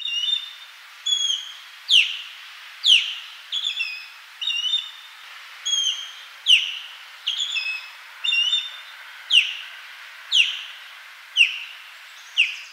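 Osprey calling: a series of sharp, high whistled notes about one a second, some short and clipped in quick pairs or triples, others loud and sliding steeply downward, over a faint steady hiss.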